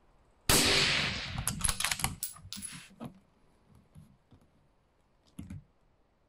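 A Sako S20 rifle in 6.5 Creedmoor fires a single shot about half a second in. The report dies away over about half a second, and a quick run of sharp metallic clicks follows for the next two seconds.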